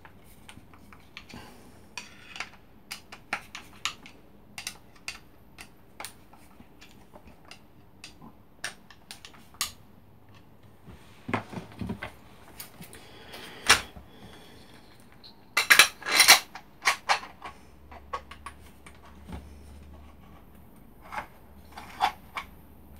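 Metal tools and parts of a small hand-held router clinking and knocking as they are handled and set down on a workbench, while the router is being taken apart to replace its gear. The sound is a string of separate sharp clicks, with a louder cluster of knocks about two-thirds of the way through.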